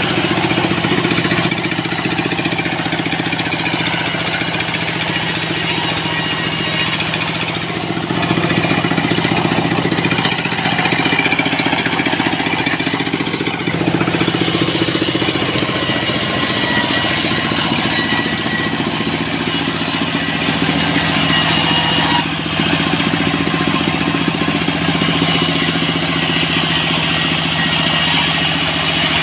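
Portable sawmill running steadily, its engine giving a constant hum while dry salam (Indonesian bay leaf) wood planks are sawn.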